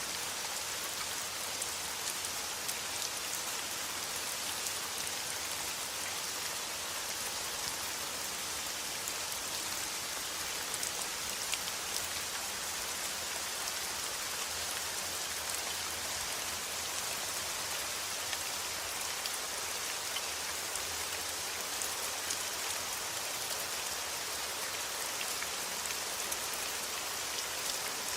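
Steady rain falling, an even hiss of dense drops with occasional sharper single drop ticks standing out.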